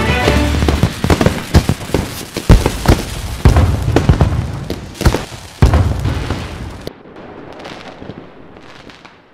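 Fireworks going off: a rapid, uneven series of booms and bangs, then after about seven seconds only a muffled rumble that fades away.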